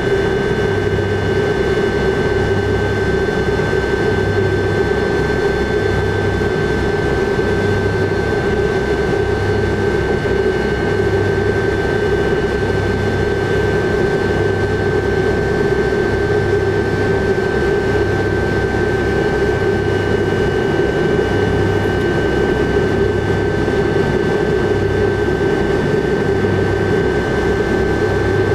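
Tupolev Tu-154B-2's three Kuznetsov NK-8-2U turbofan engines running steadily at low power, heard inside the cabin while taxiing: a constant rumble with a high steady whine on top and a low beat about once a second.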